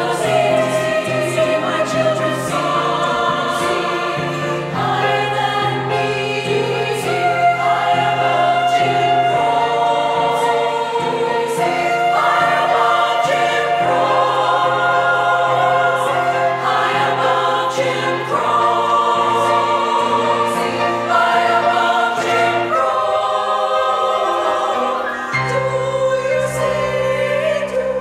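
Women's treble choir singing in harmony, holding long notes that change every second or two.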